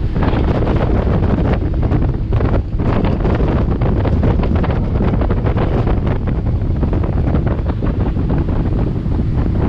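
River water taxi running at speed, heard from inside its cabin: a steady engine drone with rushing water and wind buffeting the microphone.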